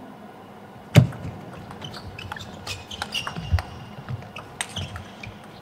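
Table tennis rally: the plastic ball clicks off bats and table in quick succession, with a sharp loud knock about a second in. A high squeak near the middle lasts about a second.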